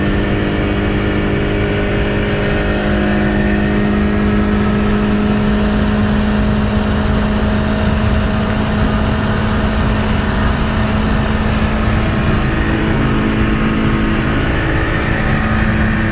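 Tofaş Doğan car engine running at a steady, sustained pitch under a haze of wind and road noise, dipping slightly about fourteen seconds in and then holding again.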